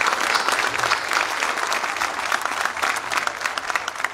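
Crowd applauding, a dense steady clapping that begins to ease off near the end.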